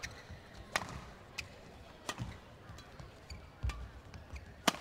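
Badminton rally: rackets hitting the shuttlecock in sharp cracks about once a second, the loudest near the end, with soft thuds of the players' footwork on the court.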